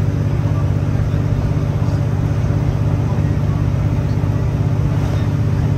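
Steady interior running noise of a Great Western Railway Class 165 diesel multiple unit at speed: the underfloor diesel engine's constant drone over the rumble of the wheels on the rails.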